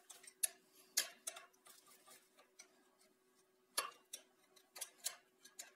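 Irregular light metallic clicks and scrapes of a screwdriver working at a water pump's impeller, easing it outward because it rubs the pump's back wall and turns stiffly. A faint steady hum runs underneath.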